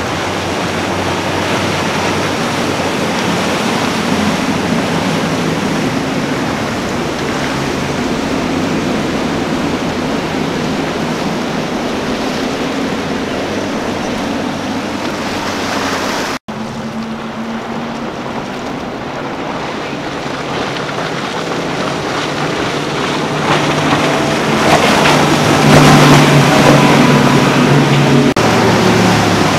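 Outboard engines on center-console boats running hard at speed, a steady engine drone under the rush of wake and water spray. The sound breaks off briefly about halfway through and picks up again on another boat, and near the end the engine drone grows louder as a boat passes close.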